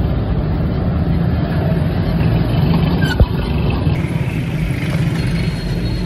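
Motorcycle cargo rickshaw's engine running close by amid street traffic, a steady low rumble, with one sharp knock about three seconds in.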